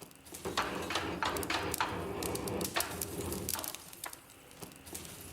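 Charcoal forge fire crackling, with irregular sharp snaps, while a sword blade heats in it before quenching.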